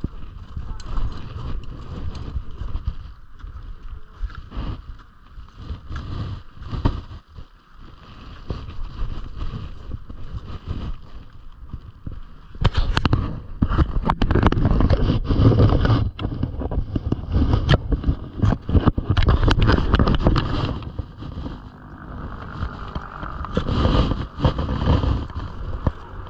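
Wind buffeting a wearable camera's microphone, with crunching steps on glacier ice and clinks of climbing gear that grow busy and loud about halfway through.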